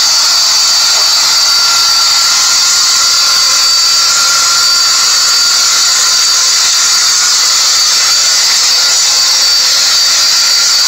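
Philips SpeedPro Max Aqua cordless stick vacuum running: a steady rush of air with a high, even motor whine.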